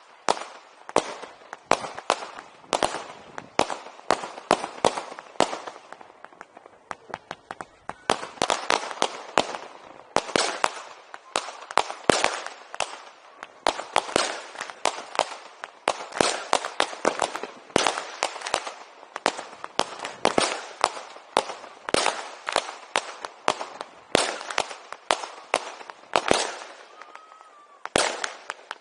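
Firecrackers and fireworks going off in dense, irregular bangs, many overlapping one another, with a thinner stretch about six to eight seconds in.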